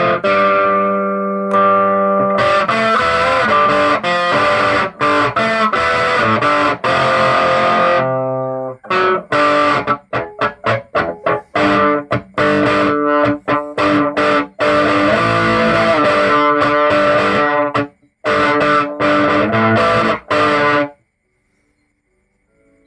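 Electric guitar played through an overdriven amplifier, testing amp-driven distortion: held distorted chords, then a run of short choppy chords, then held chords again. The playing stops about two seconds before the end.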